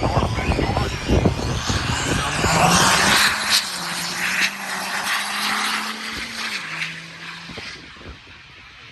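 Diesel pickup truck accelerating hard down a drag strip: a rough engine roar with turbo noise, settling into a steady drone that drops in pitch about six and a half seconds in, as at a gear change, then fading away.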